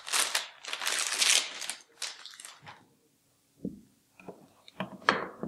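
Plastic anti-static bag crinkling as a motherboard is slid out of it, for about two and a half seconds. After a brief pause come a few soft knocks as the bare board is handled and set down on the table.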